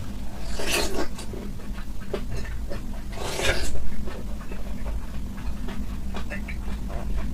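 Close-miked eating sounds of raw seafood being chewed: many short wet smacks and clicks, with two longer noisy slurping sounds, one about a second in and one about three and a half seconds in.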